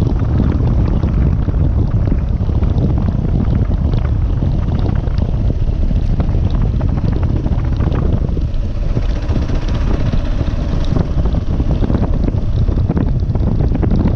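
Kawasaki KLR650 single-cylinder dual-sport motorcycle riding along a dirt track, its engine and road noise largely covered by heavy wind buffeting on the microphone.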